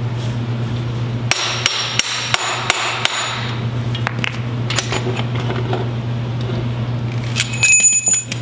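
Metal struck against metal in quick ringing blows: about six strikes a little over a second in, roughly three a second, then a few lighter taps, then another short ringing cluster near the end. A steady low hum runs underneath.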